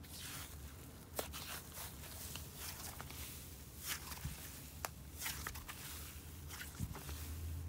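Thick icy slime being stretched and folded by hand, giving off soft crackling sizzles with a few sharp clicking pops.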